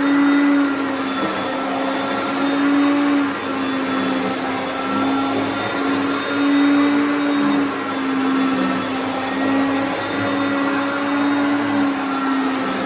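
Hoover Concept upright vacuum cleaner running over a rug. Its motor hum is steady but wavers in pitch and loudness every couple of seconds.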